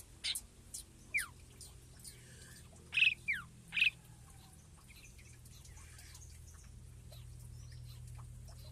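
Birds in an aviary giving short, sharp chirps that slide down in pitch, a handful in the first half with three close together about three to four seconds in. A faint low hum runs underneath and grows a little toward the end.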